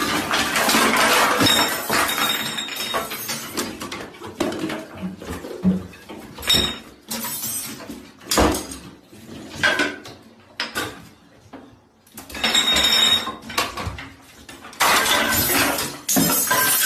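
Toiletry bottles, a spray can and other small objects being knocked off a bathroom counter by cats and hitting the floor. Two loud stretches of clattering, one at the start and one in the last few seconds, with single sharp knocks and quieter gaps between them.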